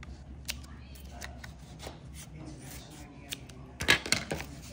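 Scattered small clicks and rustling of plastic doorbell-mount parts and foam being handled and pressed into place, with a louder clatter about four seconds in.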